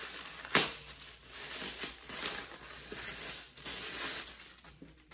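Plastic packaging crinkling as a wrapped package is handled and turned over, with one sharp, loud crackle about half a second in.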